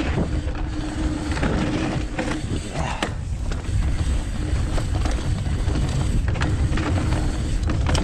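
Transition Sentinel mountain bike ridden fast along a dirt trail: wind rushing over the microphone and tyres rolling on dirt, with short rattles and clicks from the bike over bumps and a steady hum underneath.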